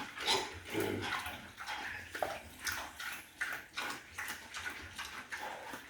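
Water splashing in a pig pen, with pigs' sounds, in irregular short bursts.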